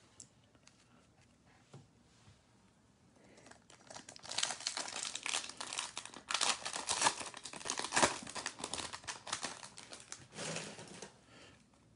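A 2020 Topps Chrome WWE card pack's shiny wrapper being torn open and crinkled by hand: a dense run of crackling and rustling from about four seconds in until near the end, after a few seconds of near quiet.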